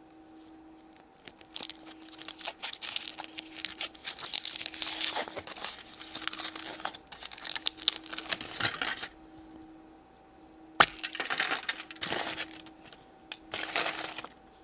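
Foil wrapper being crinkled and torn off a chocolate surprise egg, with a sharp click about two-thirds of the way through and a few more short crinkles after it.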